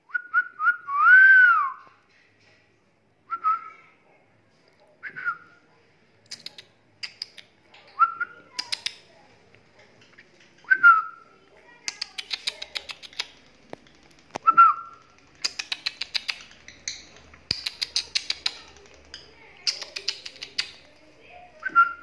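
Clear whistled notes, one long arching whistle followed by short single whistles every few seconds, answered by a rosy-faced lovebird's rapid, sharp high chirping chatter that comes in quick runs through the second half.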